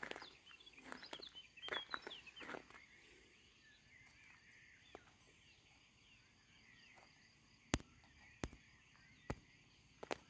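Outdoor ambience: small birds chirping and twittering for the first few seconds, over a faint, steady, high-pitched insect trill. A few sharp clicks near the end.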